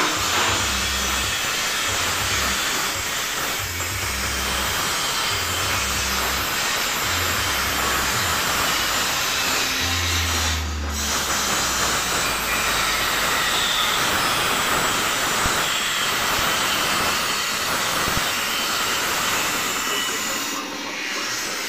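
Steady rasping hiss of sandpaper worked by hand over a fiberglass car fender, with low bass notes of background music underneath.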